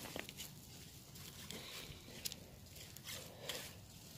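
Faint crinkling of plastic tackle packets being handled and laid down on a table, with a few light clicks.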